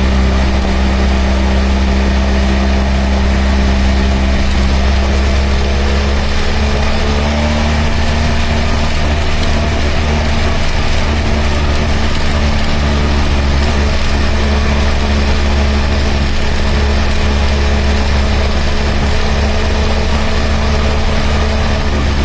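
BMW adventure motorcycle's engine running at a steady, even speed, with its pitch rising slightly about seven seconds in.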